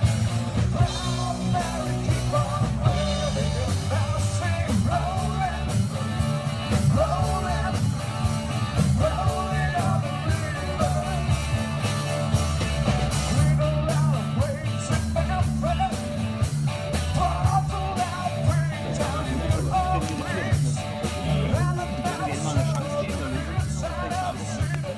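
Background rock music: a singer over guitar, bass and a steady beat.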